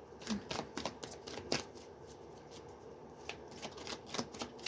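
A deck of tarot cards being shuffled by hand: a run of quick, irregular soft clicks and flicks, thinning out in the middle and picking up again near the end.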